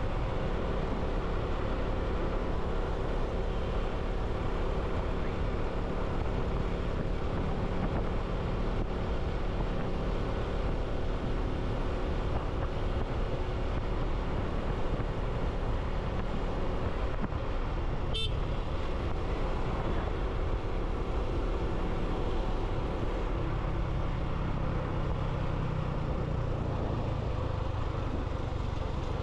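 Motorcycle engine running steadily on the move, with road and wind noise; a short sharp sound about two-thirds through, and the engine's low hum grows stronger near the end.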